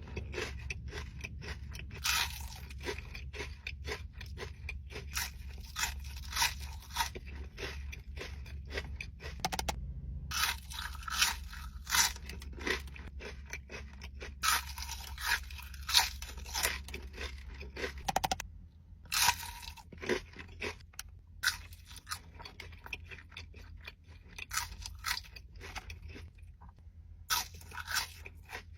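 Close-up chewing of a lettuce-wrapped burger: crisp lettuce crunching and wet chewing in quick runs of bites, with brief pauses between them.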